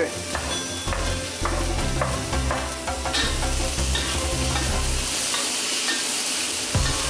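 Vegetables (carrot, onion and freshly added cabbage) sizzling as they are stir-fried in a hot pan. A spatula stirs and scrapes them, with frequent short clicks against the pan.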